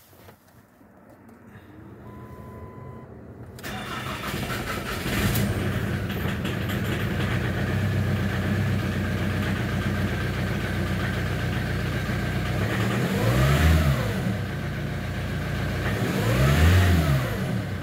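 Cold start of a Ford Mondeo diesel engine after an injection pump repair, running on Chinese-made control valves in its Delphi injectors. It catches about four seconds in, settles into a steady idle, and is briefly revved twice near the end.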